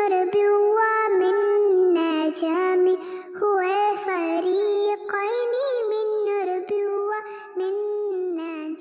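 Background song: a high, child-like voice singing a slow melody in short phrases.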